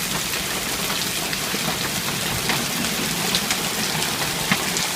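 Rain and hail of a hail storm pouring down steadily: a dense, even patter with scattered sharper hits, one standing out near the end.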